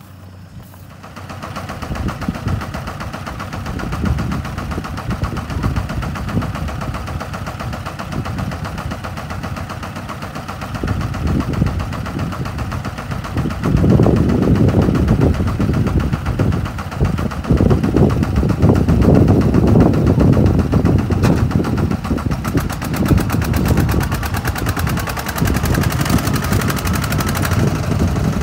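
Diesel engines of a Kubota M108S four-wheel-drive tractor and a stuck Kubota RT140 walk-behind tractor running hard under load as the walk-behind is towed through deep mud, with a fast, rapid chugging. The sound grows louder about halfway through.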